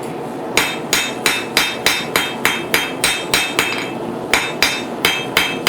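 Blacksmith's hammer striking hot steel bar on an anvil, about three blows a second with a short pause about four seconds in, each blow ringing. The blows are drawing out the end of a forged fork.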